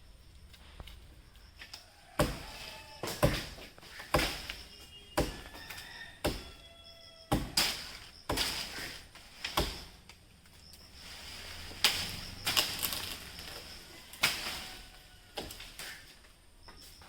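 Hand chopping into dry jackfruit wood: sharp strokes about once a second, a short pause about ten seconds in, then a few more strokes.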